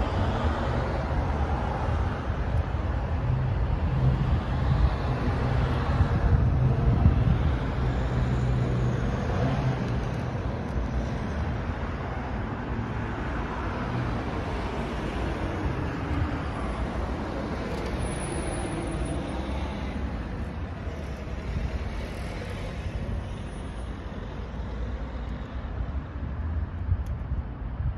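Street traffic noise: a continuous low rumble of road vehicles, swelling and fading as cars pass.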